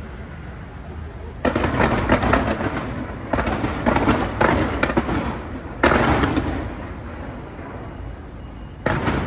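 Fireworks going off in four volleys, each a dense crackle of many bursts that fades away; the volleys start about a second and a half, three, six and nine seconds in.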